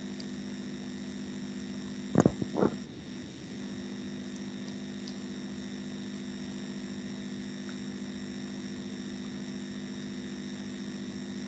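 Steady background hum with hiss, holding several fixed tones, with two brief knocks about two seconds in.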